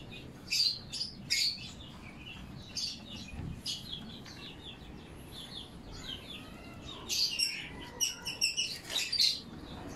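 Small birds chirping in short, high, repeated calls, with a brief warbling phrase about six seconds in.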